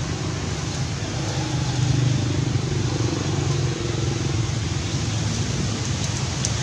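Steady low rumbling background noise, a little louder about two seconds in.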